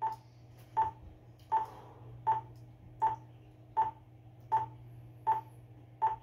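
Metronome clicking steadily at 80 beats per minute: nine short, even clicks, over a faint steady low hum.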